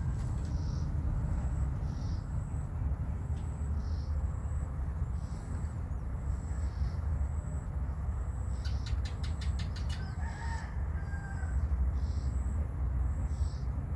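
Outdoor background with a steady low rumble and a faint high sound repeating about once a second. A quick run of clicks comes a little past the middle, followed by a short bird call.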